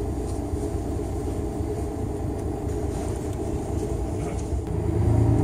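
Steady low rumble of a tour coach's engine and road noise heard inside the cabin, growing louder near the end.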